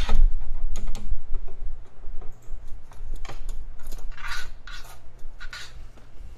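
A small parrot scraping its beak against a copier's plastic tray, heard as a few short scratchy rasps spread over several seconds. A steady low hum runs underneath and stops about five and a half seconds in.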